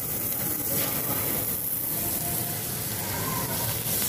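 Meat sizzling on a tabletop Korean barbecue grill: a steady hiss, over the low hum and faint chatter of a busy restaurant.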